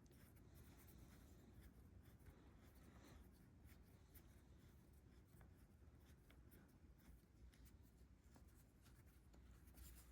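Near silence with faint small ticks and scratching: a small screwdriver turning the screw that locks the needle into a Mikuni carburettor slide.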